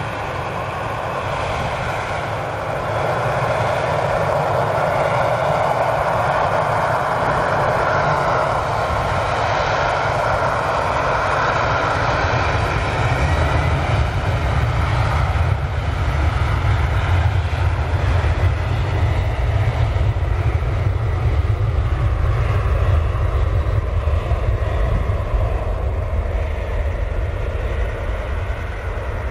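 Embraer ERJ-190 regional jet's twin GE CF34-10E turbofans running as it moves along the runway, the jet noise building over the first few seconds. About halfway through a deep rumble takes over as the aircraft heads away with its exhaust toward the listener.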